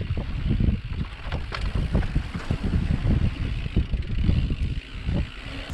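Wind buffeting the microphone of a camera on a mountain bike descending a rough dirt singletrack, with the irregular rattle and knocks of the bike and its tyres over the bumps.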